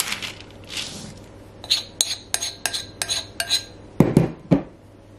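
A metal spoon clinks quickly against a glass mixing bowl, about a dozen ringing taps knocking the last of the dough off. Two heavier knocks follow near the end.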